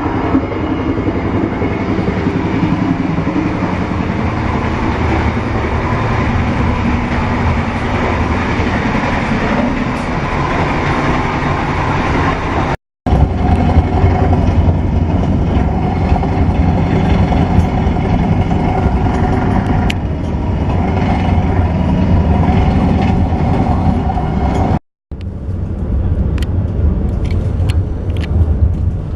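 Malioboro Ekspres passenger train running, a steady rumble of the moving train, cutting out abruptly twice. A few sharp clicks come near the end.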